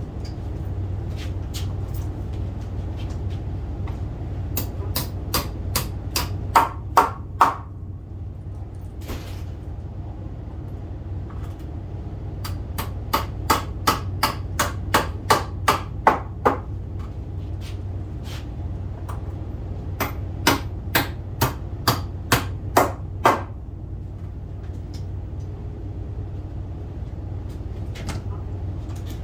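Hammer blows on wooden door framing, in three runs of quick, evenly spaced strikes, about three a second, with pauses between the runs.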